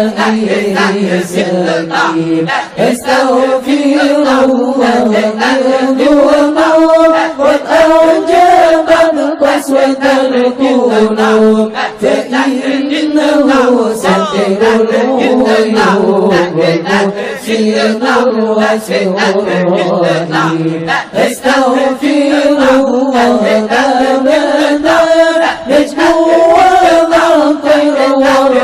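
Islamic dzikir chanting: voices recite devotional phrases together in long, slowly rising and falling sung lines, almost without pause.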